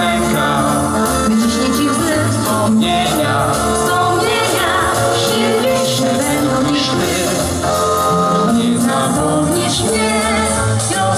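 A Polish pop song performed live: a woman and a young man sing into microphones over instrumental backing with a steady beat.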